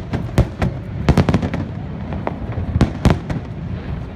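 Fireworks salute shells bursting overhead in a rapid, uneven series of sharp bangs, the loudest clusters a little over a second in and about three seconds in, over a low rumble of echoing booms.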